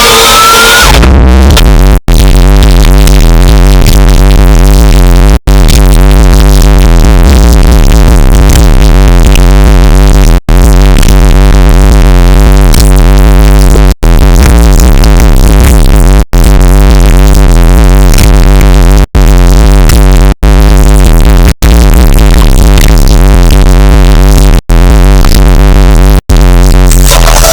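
Electronic music played very loud through a Sony Xplod car sound system, with a subwoofer box tuned to 38 Hz. The deep bass dominates and overloads the recording. The sound cuts out for an instant about ten times.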